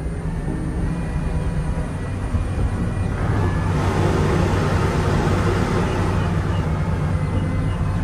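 Twin marine engines running at a steady low idle as the boat holds position, with a rushing noise from the wind that swells about halfway through.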